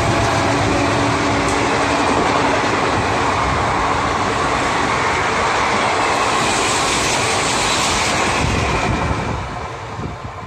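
Coaches of an express passenger train running past a platform at speed: a steady, loud rolling noise of wheels on rail that drops away about nine seconds in as the last coach clears.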